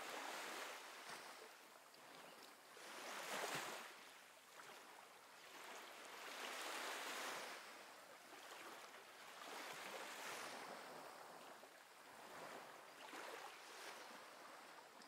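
Faint water sloshing, rising and falling in slow swells about every three seconds.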